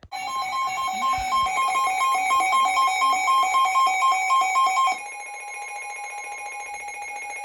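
Emergency alert attention tones from several alert receivers sounding at once: a loud two-tone alarm pulsing several times a second stops suddenly about five seconds in, and quieter steady alert tones carry on under it.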